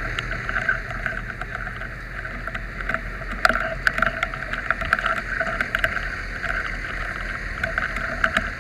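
A fire truck's engine running with a steady low hum, under rustling and many small knocks as a body-worn camera is jostled against clothing and gear.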